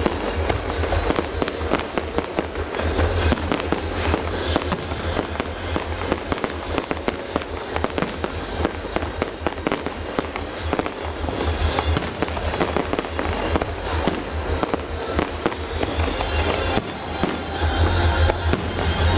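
Fireworks display: a dense, continuous run of bangs and crackles from aerial shells bursting and low rockets firing in quick succession.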